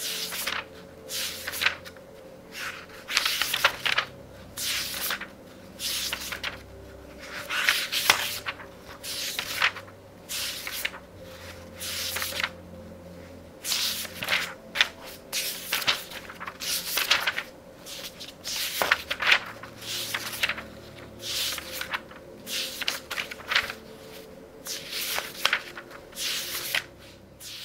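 Pages of a very thick book of a couple of thousand pages being turned rapidly, one paper rustle after another, a little more than one a second.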